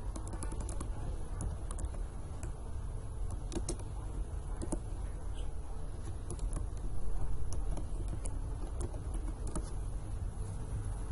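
Typing on a computer keyboard: irregular, scattered key clicks over a steady low hum.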